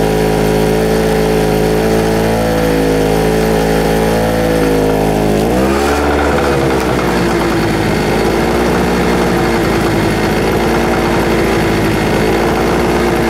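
Small two-stroke generator engine of a SIP Medusa T951 running steadily and a little unevenly, which the owner puts down to it needing to warm up and clear out or a mixture adjustment. About five and a half seconds in its note dips and shifts, then settles, as the floodlight load is unplugged.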